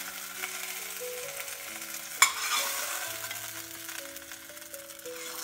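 Hot oil sizzling in a stainless steel pan as a slotted spoon scoops pan-fried chicken pieces out of it and onto a plate, with the spoon scraping the pan and one sharp click a little over two seconds in.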